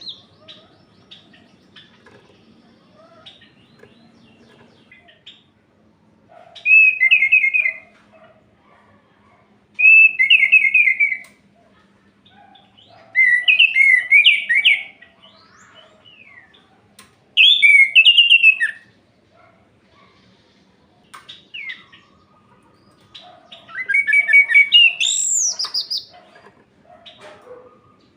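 Orange-headed thrush (anis merah) singing: five loud warbled phrases a few seconds apart, each lasting one to two seconds, the last one climbing higher, with faint chirps in between.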